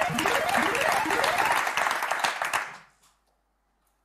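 Game-show sound effect for a correctly found word: a burst of clattering, like applause, with a series of rising swoops, fading out about three seconds in.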